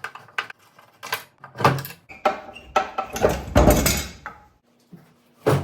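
Knocks and clattering from a metal roll-away toolbox being handled, with a louder, longer rattle about three to four seconds in.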